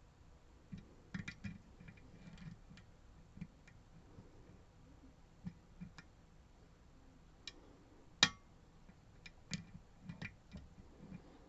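Faint, irregular small clicks and ticks of a lock pick and tension tool working the pins of a Goal P pin-tumbler lock, with one sharper, louder click about eight seconds in.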